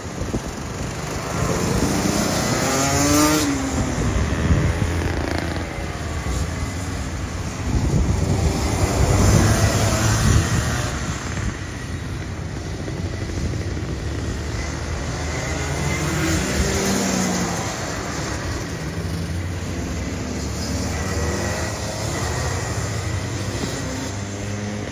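Small two-stroke go-kart engines running around a kart track, their pitch swelling and dropping away again and again as karts pass close by and move off, loudest in the first half.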